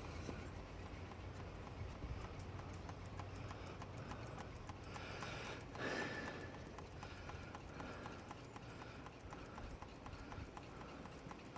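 Faint, steady run of light clicks, several a second, over a low hum, with a short swell of noise about six seconds in.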